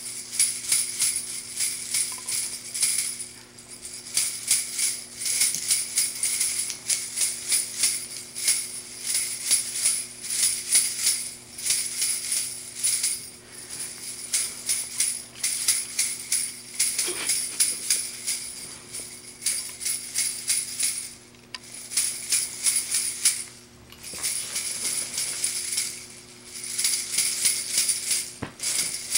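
Jingle-bell Christmas tree ornaments shaken by hand in a quick, steady rhythm, with a few short breaks.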